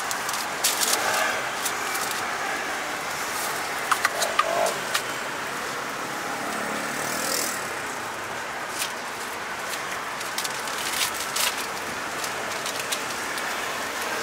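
Steady hum of street traffic, with frequent crinkling and small clicks as paper crepe wrappers and paper cups are handled; the loudest handling comes about four seconds in.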